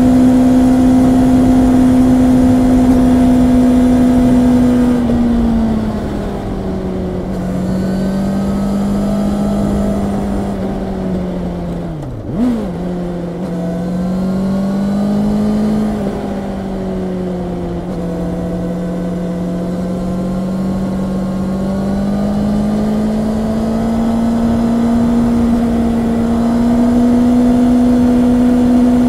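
Honda CB650R inline-four engine running on the road, holding steady revs, then easing off to lower revs about five seconds in. Near the middle the revs drop and jump back sharply for a moment, and near the end they climb slowly again.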